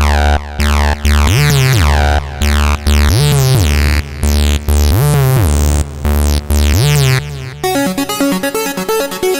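Sylenth1 software synthesizer presets being played: a thick, sustained synth patch whose notes slide up and back down in pitch about every two seconds, switching near the end to a different preset with a fast arpeggio of short plucked notes.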